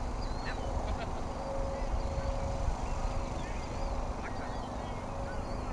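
Outdoor ambience: a low, uneven rumble of wind on the microphone, with birds chirping and calling throughout.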